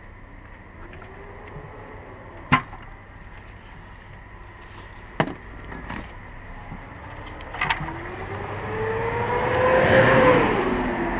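A few sharp clacks of metal parts or tools being handled, then a passing motor vehicle: its engine note swells and rises in pitch, is loudest near the end, and then falls away.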